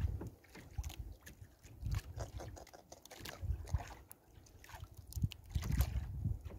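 Wind gusting on the microphone and water sloshing around a small wooden fishing boat, with scattered small clicks and rustles as a fish is worked out of a net and handled.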